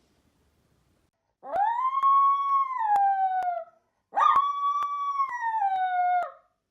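Dog howling: two long howls, each held on a steady pitch and then sliding down at the end.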